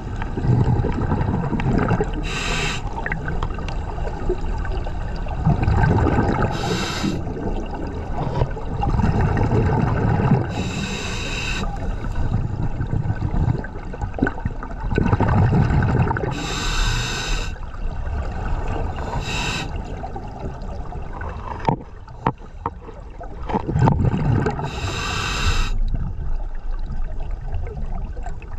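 Scuba diver breathing through a demand-valve regulator underwater: about six short hissing inhales a few seconds apart, each breath followed by a low bubbling rush of exhaled air.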